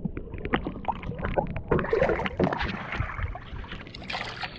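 Water splashing around a small boat, with irregular knocks and clatter against the hull.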